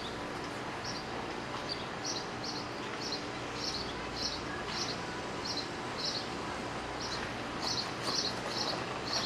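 A bird chirping repeatedly, short high chirps about two a second, over steady outdoor background noise.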